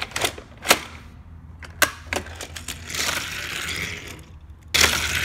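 Hard plastic clicks and clacks of a Take-n-Play Train Maker toy play set's mechanism, then a rattling rush near the end as a die-cast toy engine rolls out along the plastic track.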